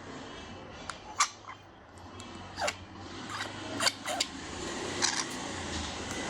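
Lovebirds giving short chirps and clicks, about eight scattered sharp sounds, some sweeping quickly downward, over a background hiss that grows slowly louder.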